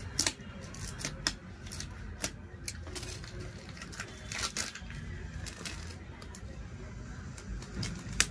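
Plastic parts packet crinkling and being torn open by hand, a run of irregular rustles and sharp clicks, the sharpest just after the start and again near the end.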